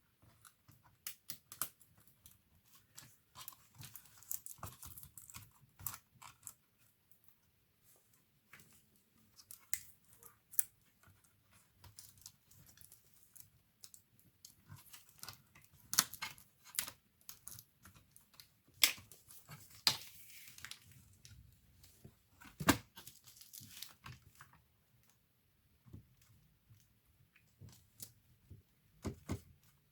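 Irregular clicks, taps and scraping of hands and small tools working on an opened laptop's internals, with a few louder sharp clicks scattered through.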